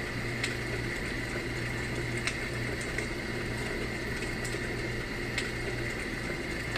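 Homedics SoundSpa clock radio playing its built-in campfire nature sound through its small speaker: a steady hiss with a low hum and a few scattered crackling pops.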